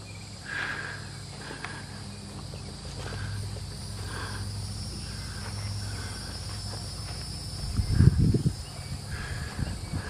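Steady high-pitched drone of insects, with short chirps recurring every second or so and a low steady hum underneath; a burst of low rumbling thumps about eight seconds in.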